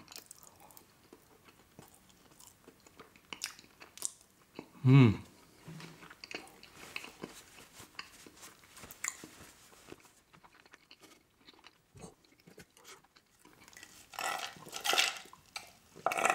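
Close-miked chewing of a chocolate truffle: soft, wet mouth clicks and smacks, with a short hum about five seconds in and louder breathy mouth sounds near the end.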